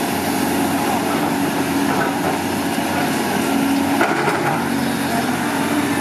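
Caterpillar 320D excavator's diesel engine running steadily under working load, with a brief louder clatter about four seconds in.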